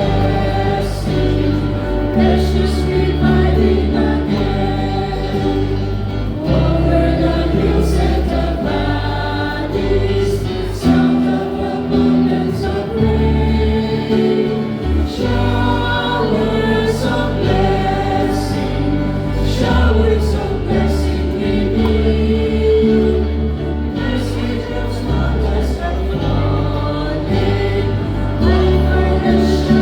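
Church choir singing a hymn with instrumental accompaniment and a strong, moving bass line.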